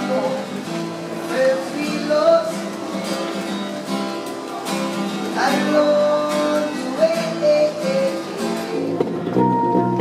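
Music: an acoustic guitar strummed under a held melody line that bends slightly between notes.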